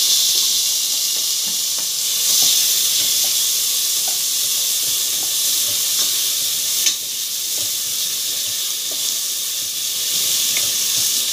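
Diced tomatoes sizzling in hot oil with sautéed garlic and onion in a stainless steel pot over a high gas flame. The steady frying hiss swells about two seconds in while a wooden spoon stirs the pan.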